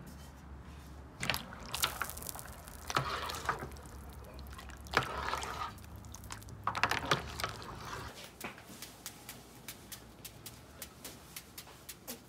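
Plastic spoon stirring menudo broth in a large aluminium pot, with irregular sloshing and knocks over a low rumble of the boiling pot. About eight seconds in this gives way to a knife cutting an onion held in the hand: a quick, even run of small clicks, about four a second.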